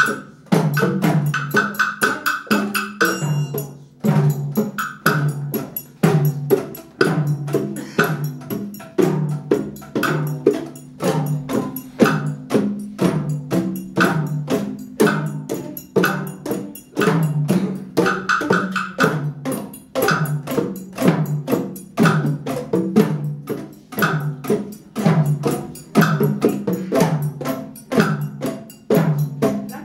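Percussion ensemble playing a rhythmic piece with a steady beat: hollow pitched strikes from boomwhackers (tuned plastic tubes) together with drums and mallet instruments.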